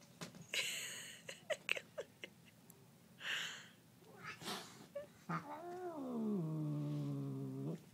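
Domestic cats squaring off: a few short hisses, then one long, low yowl that dips in pitch and holds for about two and a half seconds, a cat's warning at the other cat.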